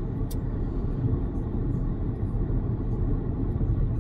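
Steady low road and tyre rumble inside the cabin of an XPeng G6 electric SUV at highway speed, with no engine note, and a faint brief click about a third of a second in.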